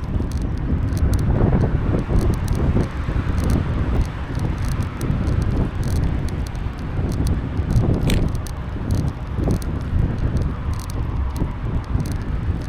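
Wind buffeting the microphone over the rumble of a bicycle rolling along a paved path, rising and falling with gusts. A brief high squeak comes about eight seconds in.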